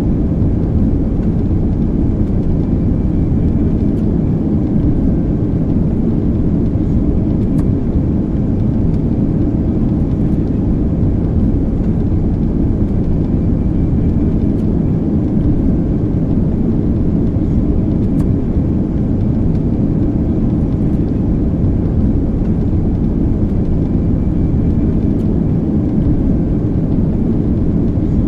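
Airplane in flight heard from inside the cabin: a steady, loud, low drone of engines and rushing air.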